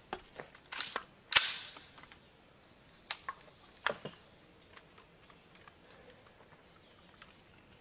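A single loud gunshot about a second and a half in, with a short echoing tail. A few fainter sharp cracks come shortly before it and again a couple of seconds after.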